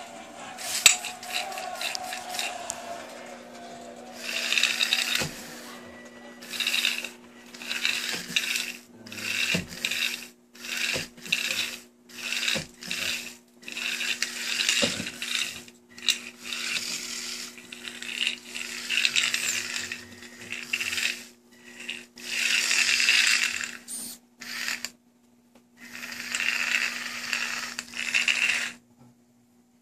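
A small wheeled robot's drive motors whirring in short bursts, starting and stopping over and over as it drives and turns, with a few knocks between.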